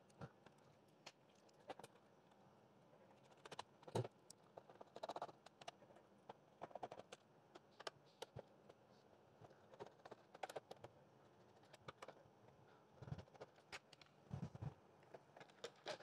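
Faint, irregular clicks and light taps of a precision screwdriver turning out the screws of a robot vacuum's plastic bottom cover, with a couple of soft plastic knocks near the end as the cover is handled.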